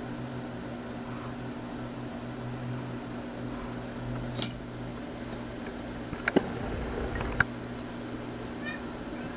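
Steady low electrical hum, with a brief sharp high squeak about four and a half seconds in, then two clicks and a muffled low rumble around six to seven seconds.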